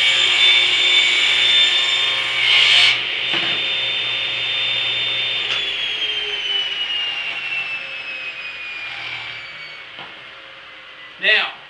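Table saw running at full speed and crosscutting a stack of three 2x3 softwood stud pieces, louder during the first few seconds. About five and a half seconds in the saw is switched off and the blade spins down, its whine falling steadily in pitch and fading.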